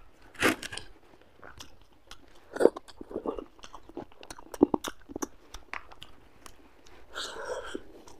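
Close-miked eating by hand of rice and fish masala: irregular wet chewing, lip smacks and crunchy bites, with a few louder bites spread through.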